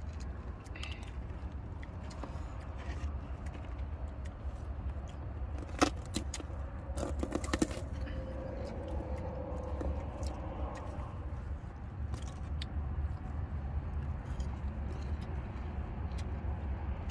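Several people eating with their hands off a plastic sheet: scattered small clicks and rustles, with a couple of sharper clicks about six and seven seconds in, over a steady low rumble.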